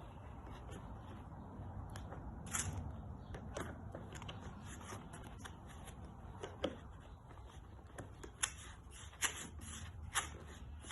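Locking pliers clicking and scraping on a saddle's stripped-head panel screw as it is twisted out, in scattered small metallic ticks with a few sharper clicks in the second half.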